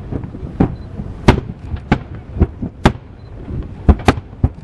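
Fireworks shells bursting in quick, irregular succession, a sharp bang about every half second, some louder and deeper than others.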